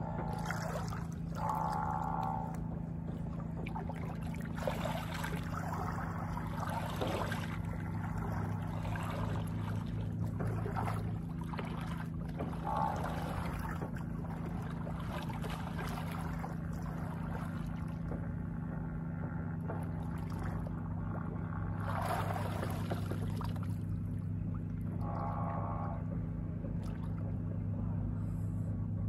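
Seawater splashing and sloshing in irregular bursts around a swimmer, over a steady low hum. Three brief muffled tones come through, near the start, the middle and the end.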